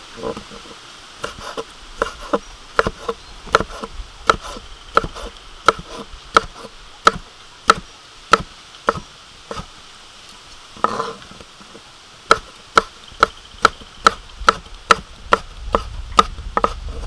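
Kitchen knife chopping through sausage halves onto a wooden cutting board, a sharp knock at each stroke. The strokes come at a steady pace of about one and a half a second, pause briefly midway, then quicken near the end.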